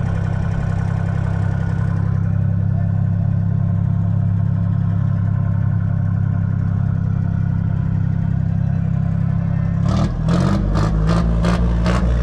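Ford Dexta 2000's 2.6-litre three-cylinder diesel engine idling steadily. About ten seconds in, a louder rhythmic clatter starts, about four knocks a second.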